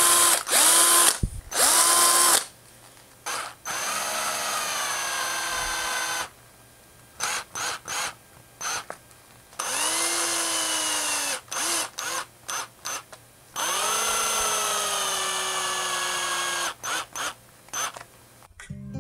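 Cordless drill run in short stop-start pulls, drilling into a hand-carved lure body and driving screw-in eyes into it. On the longer runs the motor's pitch sinks as it loads up and the eye screws home.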